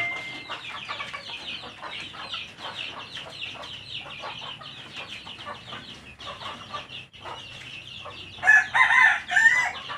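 Chickens clucking: a steady run of quick, short calls, with a louder two-part call near the end.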